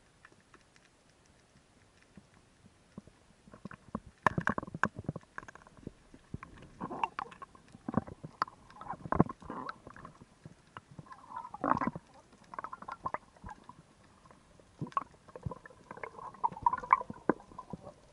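Underwater sound through a camera housing: irregular muffled knocks and gurgling water movement from a diver's swimming and handling, starting about four seconds in.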